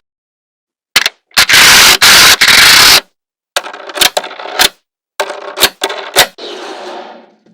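Small magnetic balls clicking and snapping together. About a second and a half in comes a loud, dense clatter lasting over a second, followed by more quick clicks and rattling.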